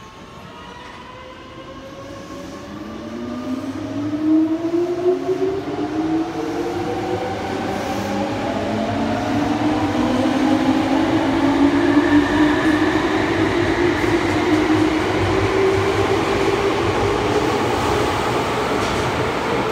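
Red Meitetsu electric trainset 214F pulling out of a subway platform. Its traction motors whine in several tones that rise steadily in pitch as it accelerates, growing louder over the first ten seconds or so.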